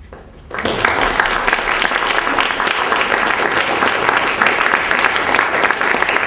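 Audience applauding, starting sharply about half a second in and continuing steadily.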